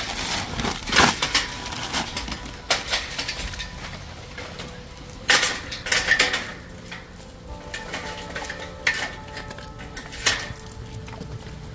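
A plastic bag being handled and whole raw sardines, stiff and frosted, being dropped and set down on a plastic mat. They make a series of separate knocks and rustles spread over several seconds.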